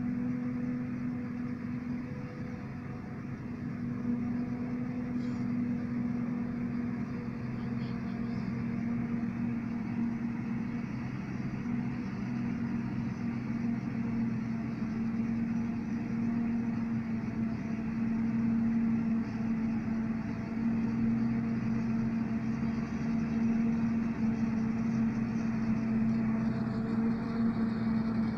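New Holland FX58 forage harvester chopping maize, with a tractor pulling a trailer alongside: a steady machine hum with one strong held tone, growing slightly louder as the machines come nearer.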